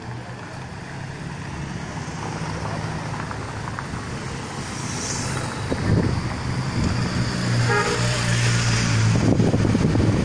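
Motorcade of cars and a police escort motorcycle approaching and passing on a city street, the engine hum and traffic noise growing steadily louder, with a brief toot about eight seconds in.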